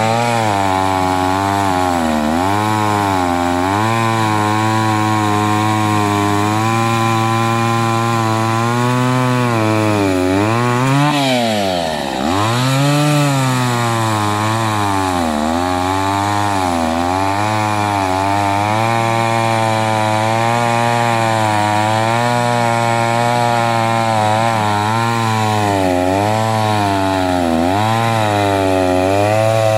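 Kioritz Echo CS-315 chainsaw, a 30.1 cc two-stroke from about 1980, running at high revs while cutting through a log. Its pitch sags and recovers again and again as the chain bites into the wood. About halfway through, the engine drops off briefly and revs back up.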